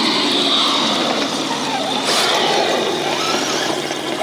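Small electric motor and gears of a radio-controlled rock crawler whirring steadily as it crawls over rocks, with water from a pumped spray bar splashing down around it.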